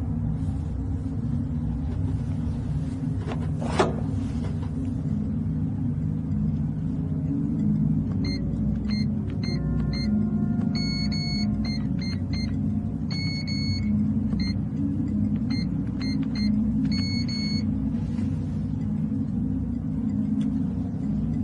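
Electronic keypad of a digital door lock beeping as a code is punched in: runs of quick short beeps, each run ending in a longer beep, repeated about four times, over a steady low rumble. A single sharp swish about four seconds in.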